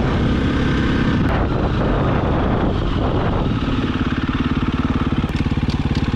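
Dirt bike engine running under the rider. About three and a half seconds in it drops to a slow, even chug.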